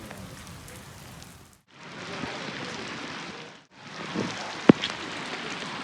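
Rain falling steadily, a continuous hiss of drops. The sound cuts out briefly twice, and a single sharp click stands out about three-quarters of the way through.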